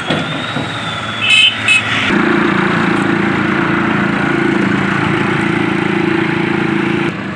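Heavy trailer lorry's diesel engine running, getting much louder about two seconds in and holding a steady drone as the truck pulls up. A few short high-pitched sounds come just before it swells.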